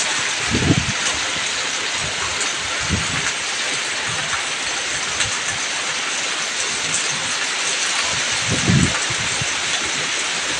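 Heavy rain falling steadily on a road, puddles and a roof, an even hiss. A few brief low thumps come about a second in, near three seconds and near the end.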